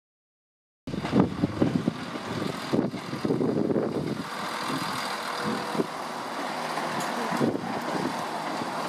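Class 170 Turbostar diesel multiple unit running as it moves through the station, a steady engine and rail noise. It starts suddenly about a second in, with gusts of wind buffeting the microphone over the first few seconds.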